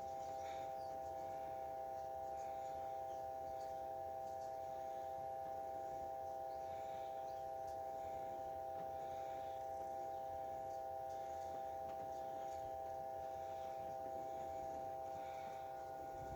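Steady electrical hum from an appliance, a few constant pitches held unchanged, with faint brief higher sounds scattered through it.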